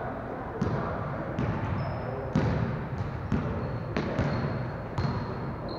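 Basketballs bouncing on a gym court, several players dribbling out of step, so the thuds come at irregular intervals and echo in the large hall. Short high squeaks come and go between the bounces.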